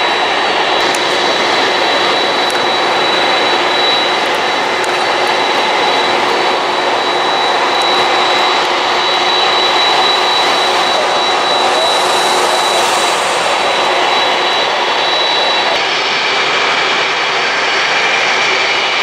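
Jet engines of a taxiing Boeing 747 freighter running at low power: a loud, steady roar with a high, steady whine, which shifts to a lower whine about sixteen seconds in.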